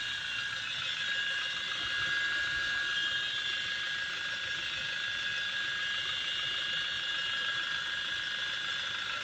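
First-generation Kia Sorento making a steady high-pitched whistle, several steady tones held over a hiss with no change.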